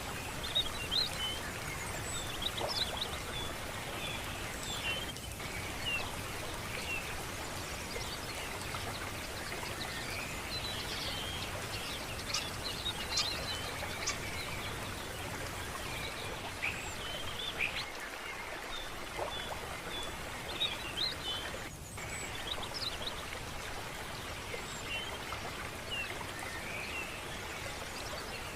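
Steady rush of running water from a stream, with birds chirping now and then throughout.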